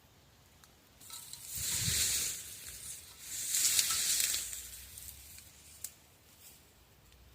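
Two swells of rustling, hiss-like noise, about a second each, the second slightly louder, followed by a couple of faint clicks.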